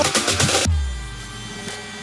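Electronic background music with a fast drum beat that drops out abruptly less than a second in, leaving a deep bass note fading under quiet held tones.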